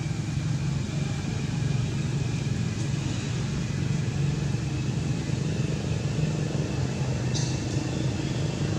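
Steady low rumble with a faint high tone above it, and a single sharp click about seven seconds in.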